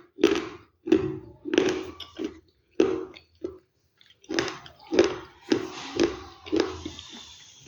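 Close-miked crunchy chewing: a run of loud crunches about twice a second, with a short pause near the middle.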